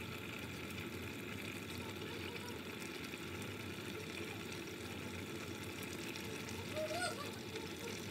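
Steady low hiss of a pot of rice and water cooking on the stove. A brief faint wavering sound about seven seconds in.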